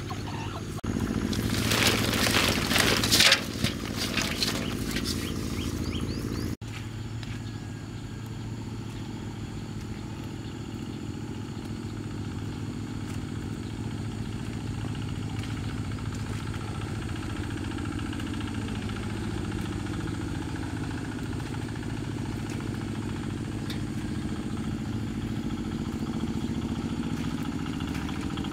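Motorbike engine running steadily on the move, its pitch dipping and rising slightly about two-thirds of the way through. A louder burst of rattling noise lasts about three seconds near the start.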